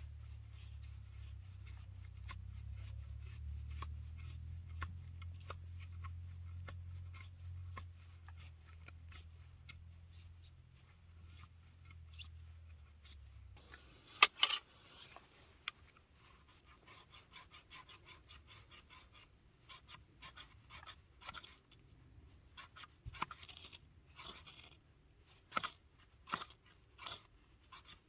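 Irregular scratching and rasping strokes. A low steady hum stops about halfway through, followed by one sharp click, and the strokes grow louder and more spaced out toward the end.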